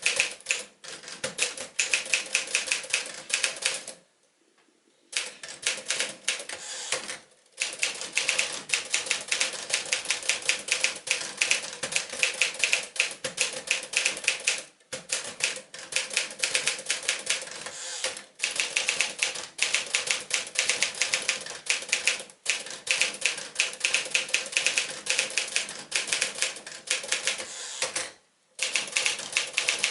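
1957 Smith-Corona Silent-Super manual portable typewriter being typed on at a fast, steady pace: a dense run of key strikes with a few short pauses, the longest lasting about a second, about four seconds in and again near the end.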